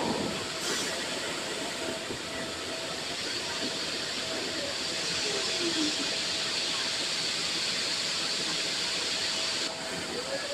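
Steady rushing hiss with a faint steady hum from the machinery driving an airliner's landing-gear retraction test, as the main gear swings up into the wheel well. A short falling tone sounds about halfway through, and the high hiss drops away just before the end, as the gear doors close.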